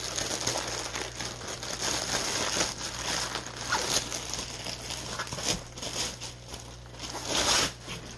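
Clear plastic bag crinkling and rustling as a fabric tote bag is unwrapped and pulled out of it, with a louder rustle near the end.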